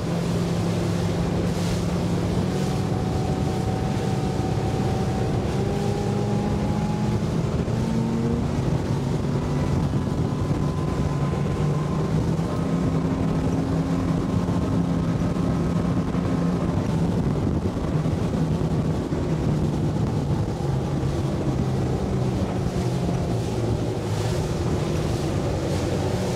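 Yamaha 250 SHO V6 four-stroke outboard running steadily with the boat under way, its note rising gently now and then, over wind on the microphone and water rushing past the hull.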